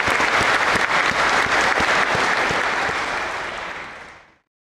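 Audience applauding, a dense patter of many hands clapping, fading out about four seconds in.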